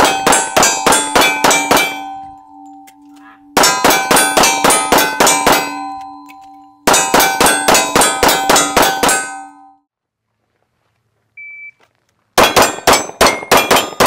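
Rapid strings of pistol shots at steel targets, the plates ringing with each hit. There are three quick strings of about eight shots each, about four shots a second. A short electronic shot-timer beep comes near the end, followed by another fast string.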